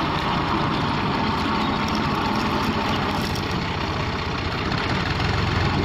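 Fiat 480 tractor's diesel engine running steadily at low revs as the tractor pulls its trailer slowly across the field.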